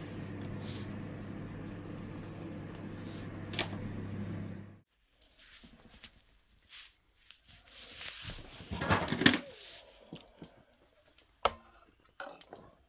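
A steady electrical hum that cuts off suddenly about five seconds in, followed by scattered clicks and knocks, with a louder rustling stretch a little past the middle.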